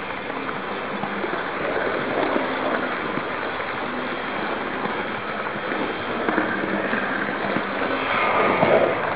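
Electric model train running along its track, heard from a camera riding on it: a steady rattling noise of wheels and motor with many fine clicks, louder near the end.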